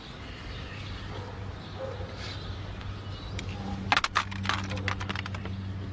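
Car engine idling with a steady low hum. About four seconds in, a quick clatter of sharp clicks as sunglasses land on a pile of plastic CD cases.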